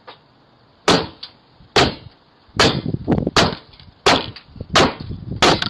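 A Ring video doorbell being struck hard again and again, about seven sharp blows a little under a second apart, heard through the doorbell's own microphone.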